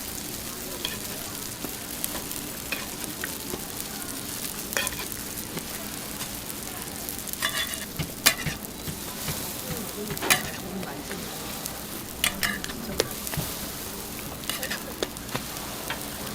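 Hotteok pancakes frying in oil on a hot griddle, a steady sizzle broken by scattered sharp clicks and knocks.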